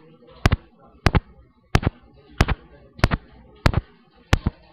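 Metronome clicking a steady beat, about three clicks every two seconds, which fits the 96-beats-a-minute cadence of the Queen's College step test.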